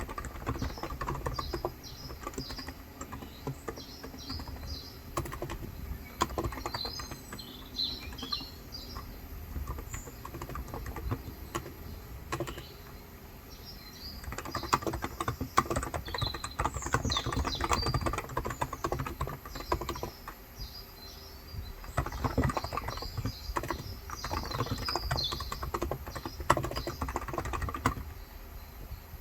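Typing on a Cox Endeavour electrostatic-capacitive tenkeyless keyboard with 35 g switches: quick runs of soft keystrokes, busiest in the second half. Birds chirp in the background.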